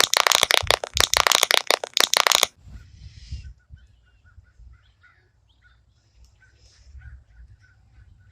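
Loud, dense crackling that cuts off abruptly about two and a half seconds in, followed by birds chirping faintly over a low rumble.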